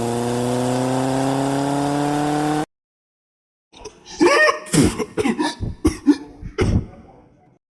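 Microwave oven running with a steady hum whose pitch creeps slowly upward, then cutting off abruptly. After a second of silence comes a cluster of short, sharp, irregular sounds.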